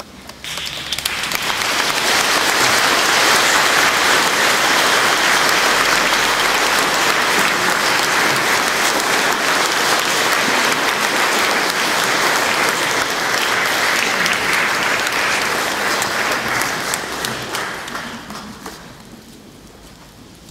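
Congregation applauding. The applause swells up about a second in, holds steady, and dies away near the end.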